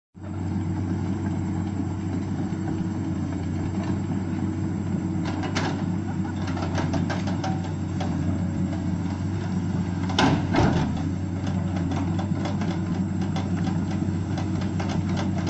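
Excavator diesel engine running steadily, with a series of clicks and knocks from about five seconds in, the loudest about ten seconds in.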